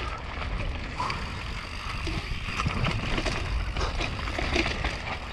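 Mountain bike running down a dirt and leaf-covered trail: tyres rolling and the bike rattling with scattered clicks and knocks over small bumps, over a steady rumble of wind on the camera microphone.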